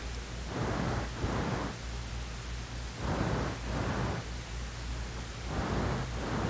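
Background hiss and low hum of an old analog soundtrack, the hiss swelling and fading irregularly about once a second.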